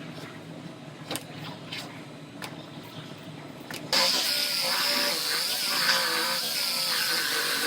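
Shop clatter with scattered clicks, then about halfway a pneumatic tool starts up and runs with a loud, steady high hiss, as the damaged rear body panel is cut off.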